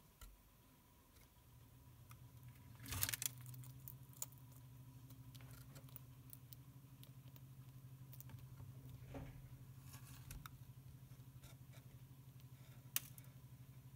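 A bearded dragon's short hissing puff of breath about three seconds in, over a faint steady low hum, with a few light clicks afterwards.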